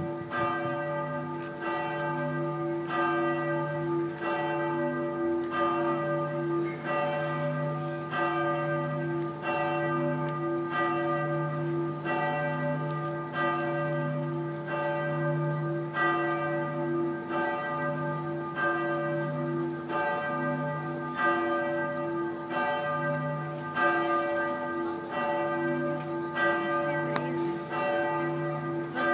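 Church bells tolling for a funeral, a steady, regular stroke about every one and a half seconds, each one ringing on into the next.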